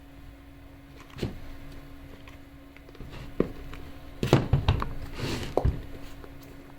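Handling noise: a few dull knocks, then a cluster of louder thumps with a short rustle a little over four seconds in, over a steady low hum.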